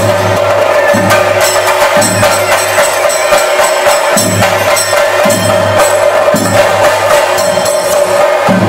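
Theyyam ritual drumming: chenda drums beaten rapidly with sticks in a dense run of strokes, over a steady held tone, with a deeper beat about once a second.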